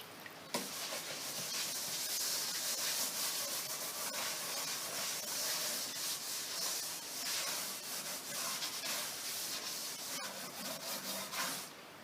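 Scrubbing a wooden drawer with a TSP and warm-water solution: a steady wet rubbing that starts about half a second in and stops just before the end.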